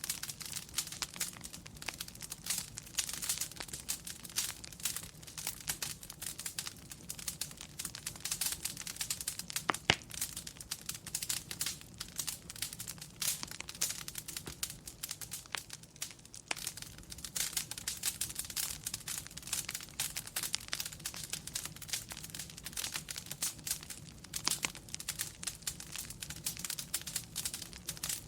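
Wood fire crackling in a fireplace: a dense, irregular run of small pops and snaps over a low steady rumble, with one sharper pop about ten seconds in.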